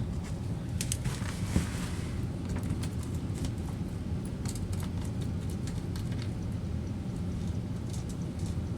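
Scattered light clicks and scrapes of screws and parts being handled while the cover is fitted onto a sewage pump, with one sharper knock about one and a half seconds in, over a steady low hum.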